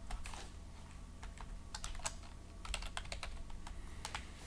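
Typing on a computer keyboard: quick key clicks in short, irregular runs.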